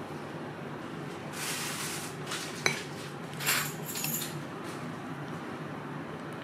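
Dishes and cutlery clinking and scraping, with one sharp ringing clink about two and a half seconds in, over a steady low hum.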